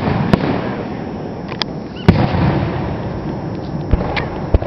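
Aerial fireworks shells bursting in a display: several sharp bangs, the loudest about two seconds in, with a continuous noisy wash between them.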